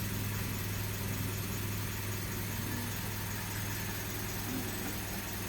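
Toyota Calya's 1.2-litre four-cylinder petrol engine idling steadily while it warms up.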